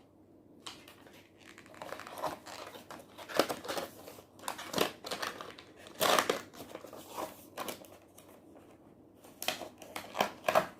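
Plastic packaging crinkling and rustling in irregular handling noises as wireless earbuds are put back into their box.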